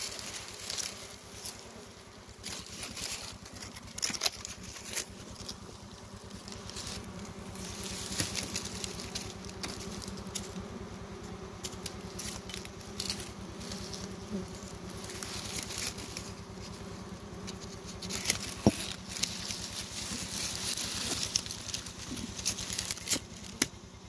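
Swarm of honeybees buzzing steadily on an exposed wild comb. Frequent sharp crackles and rustles of dry grass stems are heard over the hum.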